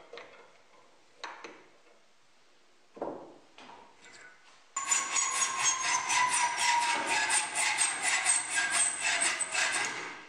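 A few light handling knocks, then from about five seconds in a hacksaw cuts a thin steel rod clamped in a bench vise, in quick, even strokes with a ringing tone from the rod that slowly falls in pitch.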